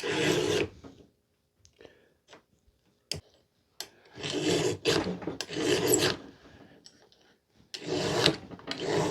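File rasping down the rakers (depth gauges) of a chainsaw chain through a raker gauge, lowering them to the right height so the chain cuts well. The file goes in slow strokes, about five of them: one at the start, then a group after a pause of about three seconds, and two more near the end. A single sharp click comes about three seconds in.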